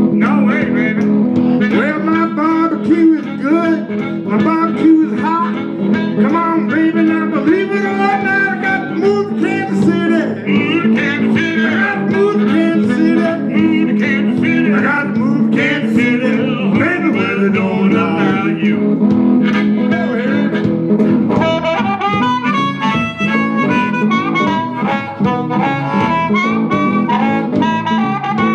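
Live blues played on a harmonica and a guitar, with the harmonica taking an instrumental break full of bent, wavering notes.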